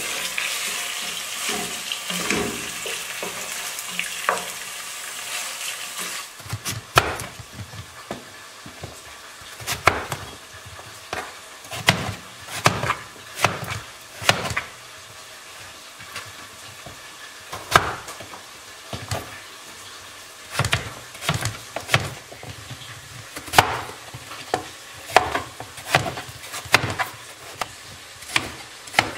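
Diced chicken and onion sizzling as they fry in a pot, for about the first six seconds. Then a knife cuts through raw potato and hits a wooden cutting board in sharp, uneven strikes about once a second, sometimes in quick pairs.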